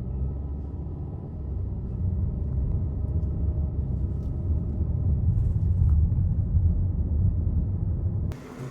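Low, steady rumble of a car driving on the road, heard from inside the cabin, growing a little louder and cutting off suddenly near the end.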